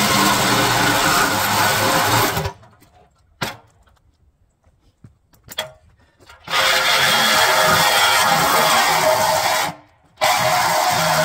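Flex 24-volt cordless reciprocating saw cutting through a steel trailer frame. It cuts off about two and a half seconds in, leaving near silence with a couple of faint clicks, starts cutting again about four seconds later, and stops for a moment near the end before running on.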